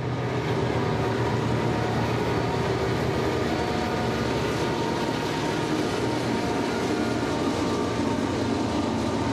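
Freight train passing close by at a steady speed: diesel locomotives followed by tank cars and covered hoppers rolling along the track.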